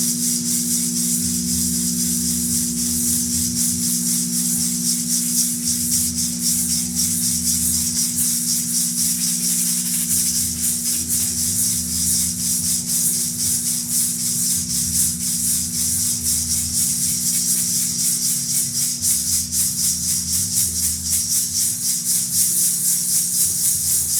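A hand rattle shaken rapidly and evenly through the whole stretch, over a sustained low drone of steady tones, with a deeper tone pulsing underneath.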